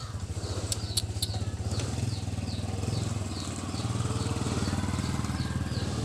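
A small engine running steadily at idle with a low, fast pulse. A high chirp repeats a little over twice a second, and three sharp clicks come about a second in.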